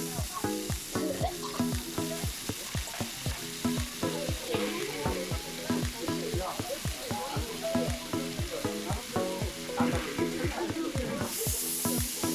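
Pork sizzling and frying on a hot iron griddle, a steady hiss. Background music with a steady plucked beat of about four strokes a second plays over it.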